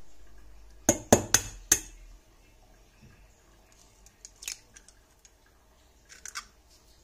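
An egg tapped four times in quick succession against the rim of a stainless steel saucepan, four sharp clicks, followed by faint crackles of the eggshell being pulled apart by hand.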